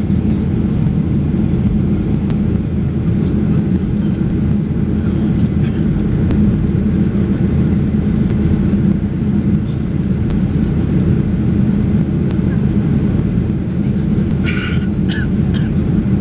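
Steady low drone of an airliner in cruise, jet engines and airflow, heard inside the passenger cabin.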